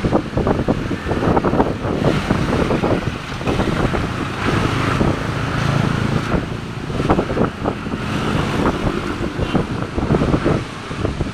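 Strong, gusty wind buffeting the microphone: a loud, uneven rumble with constant crackling bursts as the gusts hit.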